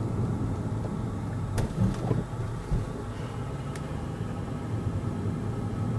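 Car running on the road, heard from inside the cabin: a steady low engine hum with tyre and road noise, and a couple of light clicks.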